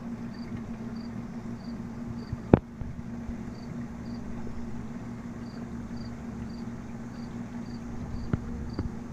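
A cricket chirping at an even pace, about two short high chirps a second, over a steady low hum. A single sharp knock about two and a half seconds in is the loudest sound, and a few lighter clicks come near the end.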